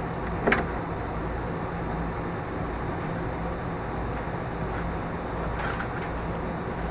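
Steady low background hum, with one sharp click about half a second in and a few fainter clicks near the end.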